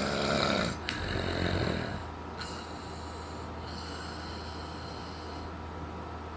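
A person snoring: a rough, rasping snore for about the first two seconds, then a steady low hum.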